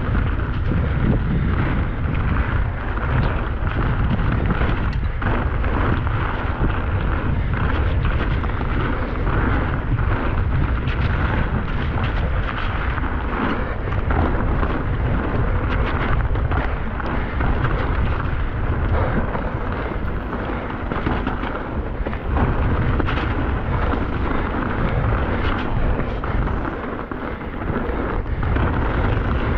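Wind buffeting an action camera's microphone at riding speed, a steady low rumble, over the tyre noise and frequent clicks and knocks of a Commencal Clash mountain bike rattling down a wet, rough dirt trail.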